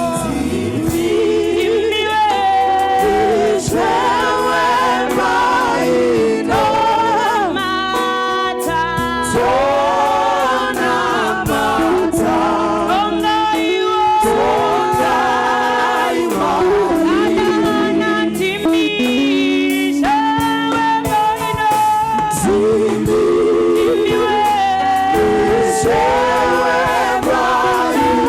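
A choir sings a Shona gospel worship song, several voices together in harmony, without pause.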